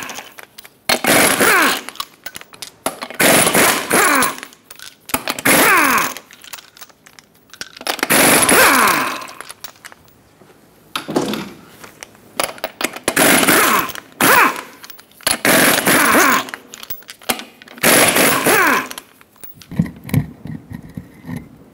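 Cordless impact wrench with a 21 mm socket spinning off wheel lug nuts one at a time: eight short bursts of hammering, each about a second long, with pauses between. Near the end come lower knocks as the heavy wheel is pulled off the hub.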